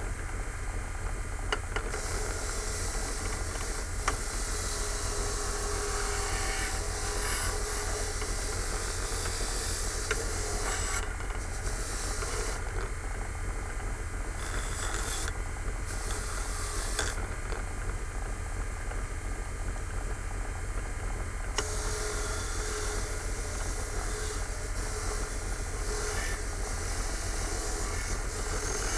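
Bench grinder running with a steady low hum, while metal is ground against the wheel in several stretches of a few seconds each: a hissing grind that starts and stops.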